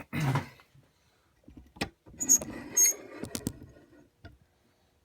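Sharp metallic clicks and clinks of a padlock being taken apart by hand, as the circlip holding its core is worked off, with a short scrape at the start and a cluster of ringing metal clicks in the middle.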